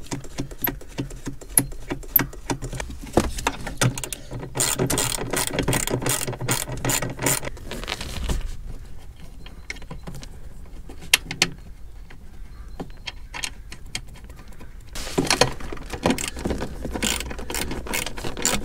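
Ratchet wrench clicking in quick runs as 10 mm nuts are tightened onto the studs of an airbag control module. There are two long runs, about five seconds in and again near the end, with scattered clicks between.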